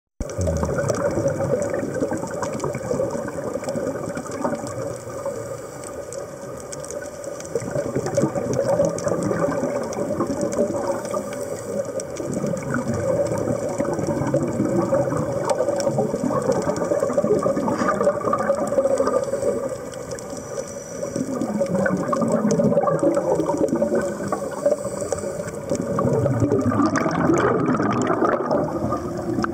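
Scuba divers' exhaled air bubbling and gurgling underwater, swelling and fading every several seconds with each breath, over a steady hum.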